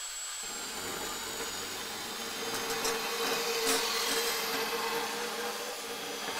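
DeWalt Atomic compact cordless bandsaw running and cutting through a chromed hard-steel pipe with about a 1/8-inch wall: a steady motor whine with the blade cutting the metal. It stops suddenly at the end as the cut finishes.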